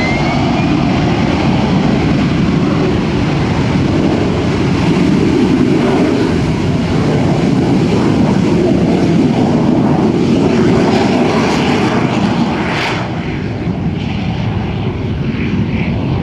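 AV-8B Harrier II's Rolls-Royce Pegasus turbofan at takeoff power: a loud, steady jet roar as the jet rolls, lifts off and climbs out.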